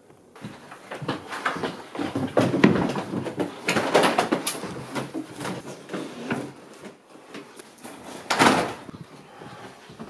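Hurried rummaging through furniture: drawers and cupboard doors pulled open and shut, with a quick run of knocks, clatters and rustles, and one louder crash about eight and a half seconds in.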